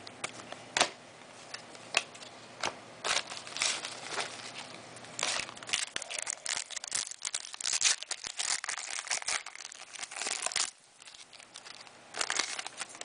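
Trading-card pack wrapper crinkling and tearing as it is opened: scattered sharp ticks for the first few seconds, then dense crinkling that stops suddenly about eleven seconds in, with a short burst again near the end.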